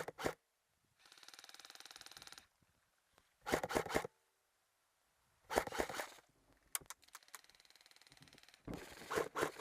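An airsoft electric gun fires a full-auto burst of about a second and a half, with many rapid, evenly spaced shots. A fainter, longer burst follows later. In between come three louder, irregular clusters of knocks.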